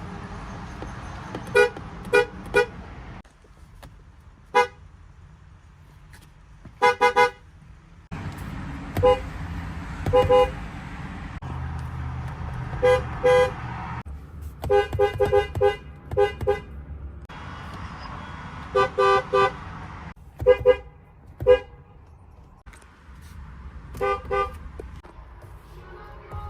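GMC vehicle horns sounding in short honks, many in quick runs of two or three, repeated across a string of separate clips. Steady engine or street noise fills the gaps, changing in level from clip to clip.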